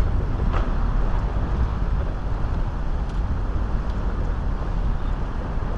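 Street traffic, cars passing through a city crossing, under a heavy, steady wind rumble on the microphone.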